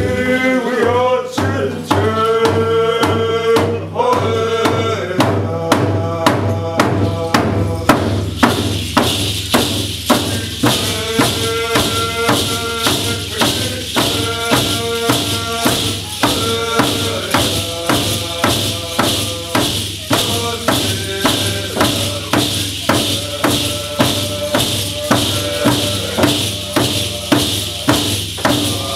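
Traditional Coast Salish song: a group of voices singing over a steady drum beat of about two strokes a second. About eight seconds in, a continuous rattling shake joins the drum and voices.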